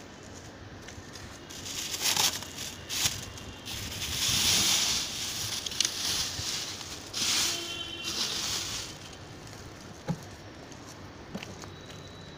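Thin black plastic bin bag crinkling and rustling in irregular bursts as it is untied and pulled off the mouth of a compost drum, from about two seconds in until about nine seconds. A single sharp knock about ten seconds in.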